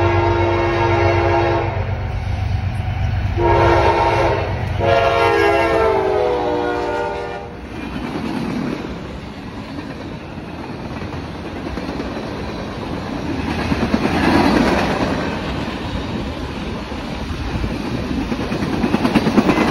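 CSX freight train passing: the locomotive's multi-note air horn sounds, stops, then sounds again and drops in pitch as the locomotive goes by, over a low diesel rumble. The freight cars then roll past with steady wheel noise and clickety-clack over the rail joints.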